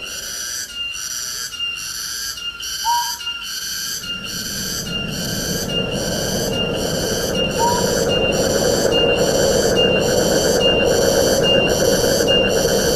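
Wind rushing through forest trees, easing off for the first few seconds and then building up again. Over it runs a high, steady pulsing about one and a half times a second, and two short rising whistled calls sound a few seconds apart.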